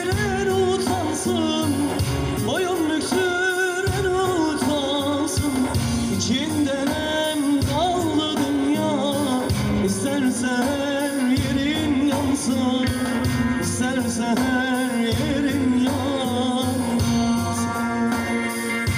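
Live band playing a Turkish folk song in an instrumental passage: a wavering, vibrato-laden melody over a steady beat.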